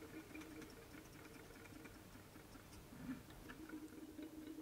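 Faint, irregular ticking and rustling of black fly-tying thread being wound onto a long-shank hook held in a vise, with a faint steady low tone underneath.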